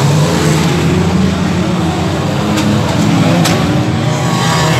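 Banger racing cars' engines running loud and steady as they race round the track, with two sharp knocks about two and a half and three and a half seconds in.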